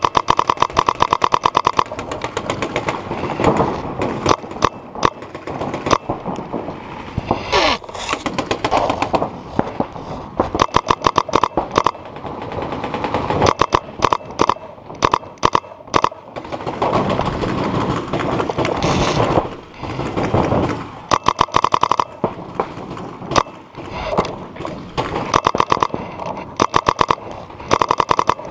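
Paintball markers firing reusable reballs in fast strings of shots, starting and stopping with short pauses between strings.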